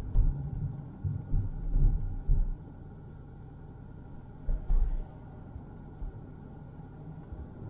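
Low rumble of a car moving slowly in traffic, picked up by a dashcam microphone, with irregular low thumps that come in clusters in the first two seconds and again about five seconds in.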